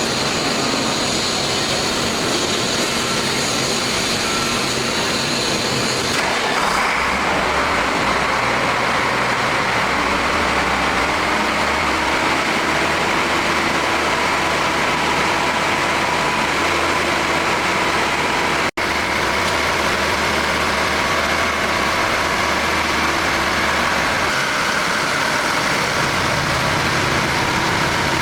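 Diesel engine of a wood chipper running steadily. Its sound shifts about six seconds in and cuts out for an instant a little past the midpoint.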